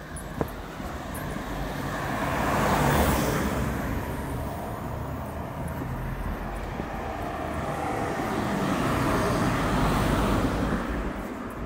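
Road traffic: two cars passing by one after the other, each swelling up and fading away, the first about three seconds in and the second near ten seconds, over a low steady rumble.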